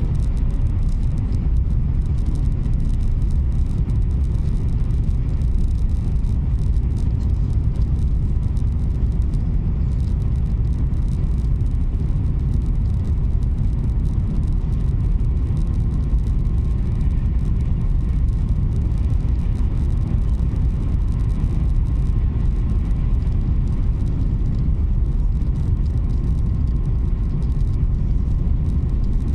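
Italo Alstom AGV (ETR 575) high-speed train running at speed, heard from inside the passenger cabin as a steady, even low rumble.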